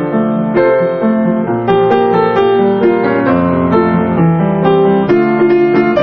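Piano music: a melody of separate notes over sustained chords at a steady, moderate pace.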